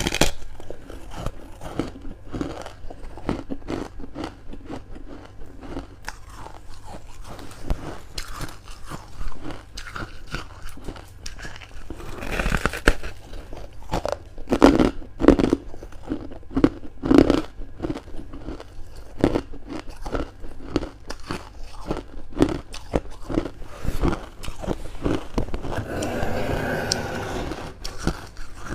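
Close-miked biting and chewing of freezer frost: a run of sharp crunches and crackles as the icy frost breaks between the teeth, with a few louder crunching bites about halfway through.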